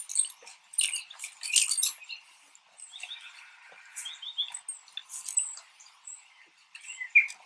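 Small birds chirping in short calls, mixed with scattered sharp clicks and rustles.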